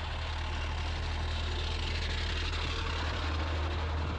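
Morooka MK70 crawler tractor driving up and passing overhead, its diesel engine running with a steady deep hum. The noise swells as the machine comes close.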